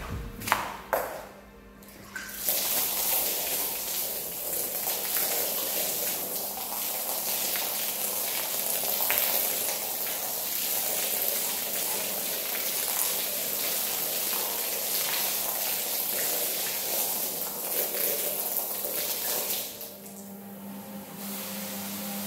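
A wet rug slapped down onto a tiled floor, then a hose spraying soapy water across the rug in a steady hiss that stops about twenty seconds in.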